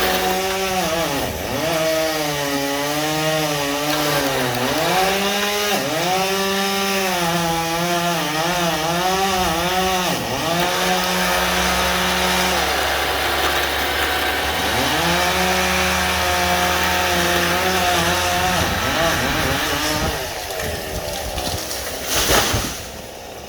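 Stihl two-stroke chainsaw running hard through wood, its pitch sagging and recovering again and again as the chain bites. It dies away about twenty seconds in, and a short loud crash follows near the end.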